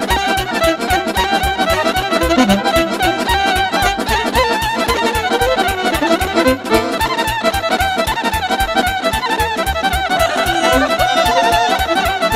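Instrumental break of a Romanian folk party song (muzică de petrecere): a band playing a fast melody over a quick, steady bass beat, with no singing.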